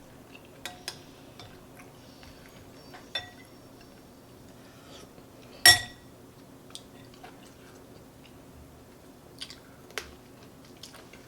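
A person chewing a mouthful of chicken noodle soup close to the microphone, with scattered light clicks and one sharper ringing clink of a spoon against the bowl a little over halfway through.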